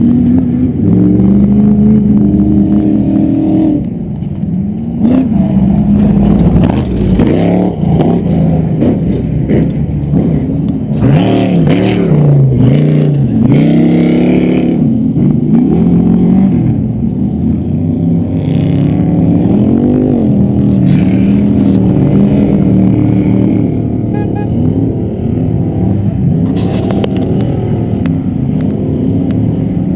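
Off-road race trucks' engines revving, the pitch climbing and dropping again and again as they accelerate and lift off, with a few bursts of clatter.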